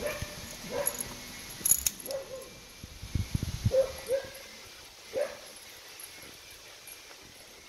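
Dogs at play: a dog giving about six short yips and whines in the first five seconds, with a sharp click near two seconds in and a brief low rumble a little past three seconds.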